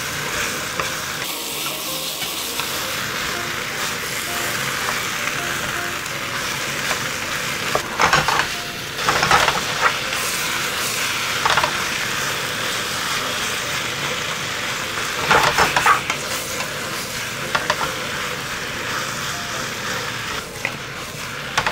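Cuttlefish and vegetables sizzling steadily in a hot wok as they are stir-fried, with a wooden spatula scraping and knocking against the pan several times.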